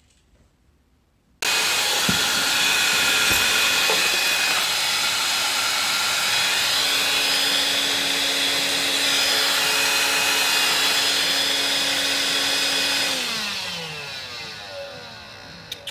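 Loud electric motor of a household appliance starting abruptly, running with a steady whine and rush of air, then switched off about 13 seconds in, its pitch sliding down as it spins down.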